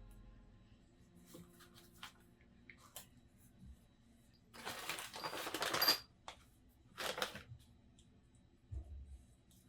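Scattered small clicks and handling noises, with a louder rustling, scraping burst about five seconds in and a shorter one about two seconds later.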